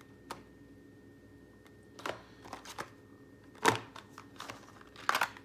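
Plastic-and-card blister packs being handled and set down on a towel: a few scattered light taps and rustles, the sharpest a little under four seconds in.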